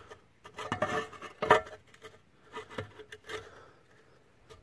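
Scattered light clicks and knocks of metal parts being handled, the loudest about one and a half seconds in: a GM power steering pump's reservoir being worked down onto the pump body over its O-rings.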